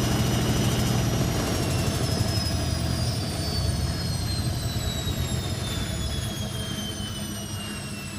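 Indesit 860B washing machine in its spin, the motor's whine and drum rumble falling steadily in pitch from about a second in as the drum slows. The load is a mattress protector, and the speaker expects it to set the machine walking.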